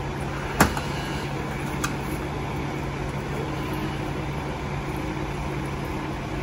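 A hydraulic rescue tool forcing a storefront's metal door frame: a sharp crack about half a second in and a lighter click about a second later, over a steady low mechanical hum.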